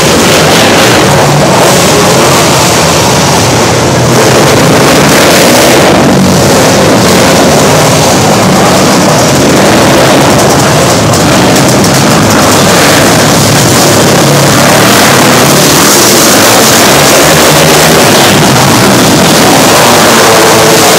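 Small engines of several winged sprint-style racing karts running hard around a dirt track, a loud, steady engine racket with no let-up.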